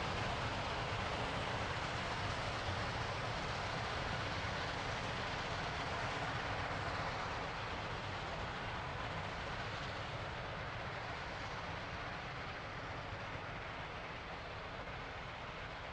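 Train running on the tracks, a steady rumbling noise with no distinct beats that slowly fades, as if moving away.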